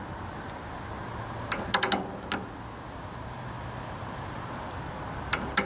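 Ratchet torque wrench being worked on a bolt: short runs of sharp metal clicks about a second and a half in and again near the end. The wrench has not yet reached its set torque of about 23 foot-pounds. A steady low hum runs underneath.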